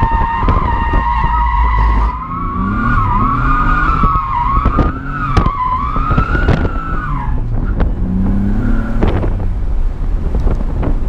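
Car tyres squealing in a long slide, the squeal wavering in pitch over the engine running hard. The squeal stops about seven seconds in, leaving engine and tyre noise with scattered knocks.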